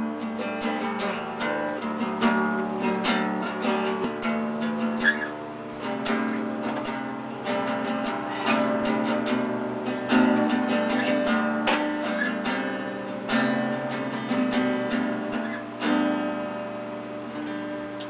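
A guitar being strummed and picked in a loose jam, with repeated chord strokes throughout.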